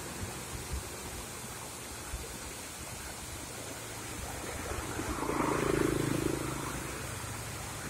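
Steady rushing of a waterfall cascading over rocks, with a vehicle passing on the road and swelling louder about five seconds in.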